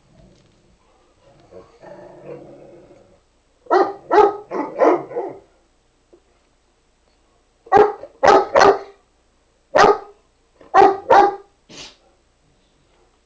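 Dog play-barking to invite another dog to play: a soft, low growl for a second or two, then about ten loud, short barks in clusters of four, three, one and two.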